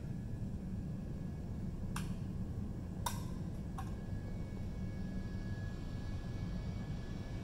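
Boeing 717 taxiing at a distance: a steady low rumble from its Rolls-Royce BR715 turbofans, with a faint high whine coming in about halfway through. A few sharp clicks sound around two and three seconds in.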